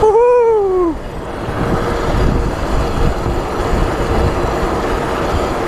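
Rushing wind on the camera microphone and BMX tyres rumbling on asphalt during a fast downhill ride. It opens with a short yell that falls in pitch.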